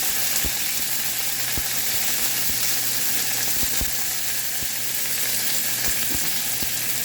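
Mustard seeds and curry leaves frying in hot sesame oil for a tempering: a steady loud sizzle with scattered sharp pops and crackles.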